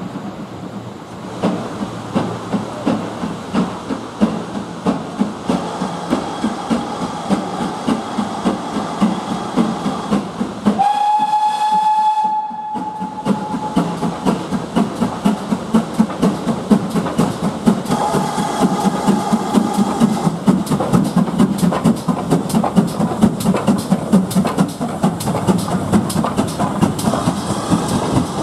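GWR 4200-class 2-8-0T steam tank locomotive No. 4277 working a train, its exhaust beating in a steady rhythm that grows louder as it approaches and passes close by. Its steam whistle sounds twice: a blast of about three seconds some eleven seconds in, and a shorter one about eighteen seconds in.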